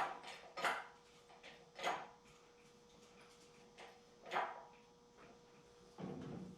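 Engine hoist being jacked up to lift the race car's engine out: a few separate clunks at uneven intervals over a faint steady hum.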